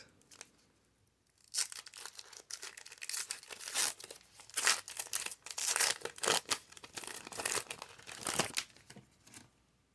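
Foil wrapper of a Pokémon trading card booster pack being torn open and crinkled: a run of crackling rips and rustles that starts about one and a half seconds in and stops just before the end.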